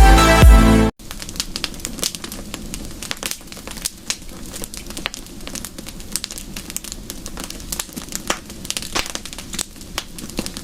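Electronic dance music cuts off abruptly about a second in, followed by irregular crackling and clicking over a low rumble.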